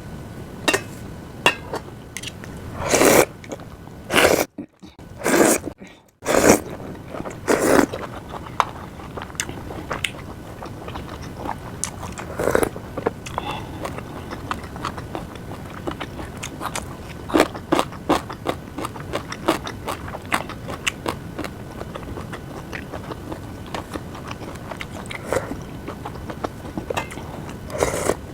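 Close-miked eating sounds: chewing, with many light clicks of utensils against dishes and a few louder bursts in the first eight seconds. The sound drops out briefly twice around five seconds in.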